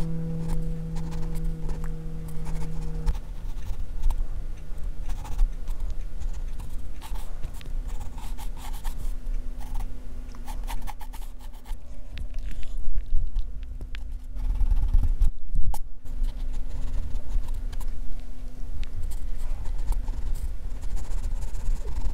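Pencil scratching and scraping on drawing paper in short, repeated strokes. A held humming tone dies away about three seconds in, and a dull low bump comes about fifteen seconds in.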